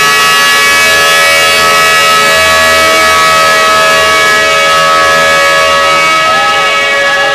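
Loud, steady drone of several horns sounding together, unbroken, with a brief wavering tone near the end.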